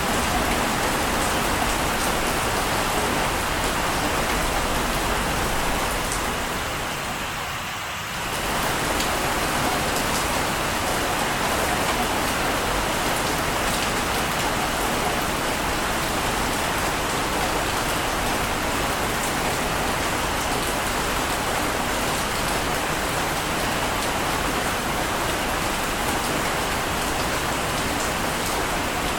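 Steady rushing water noise, as of surf or heavy rain, with no distinct wave swells. It fades down over about two seconds from roughly six seconds in, then cuts straight back to full level, like a loop restarting.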